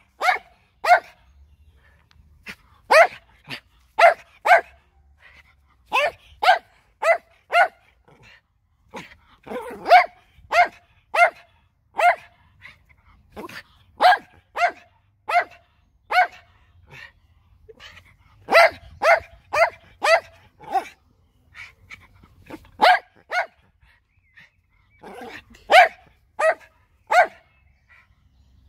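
A dog barking loudly over and over, in runs of two to five sharp barks about half a second apart, with short pauses between the runs.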